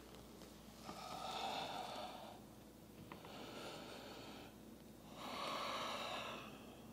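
A person breathing audibly during a yoga flow: three slow, long breaths, each about a second and a half.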